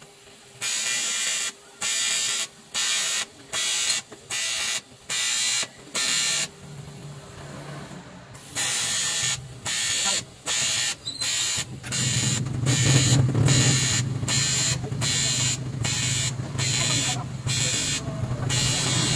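Electric arc welding on a torn diesel fuel tank, laid down in short stitches: the arc hisses on and off in bursts of under a second, about once a second, with a longer break a little past the middle. About twelve seconds in a low steady hum joins and becomes the loudest sound.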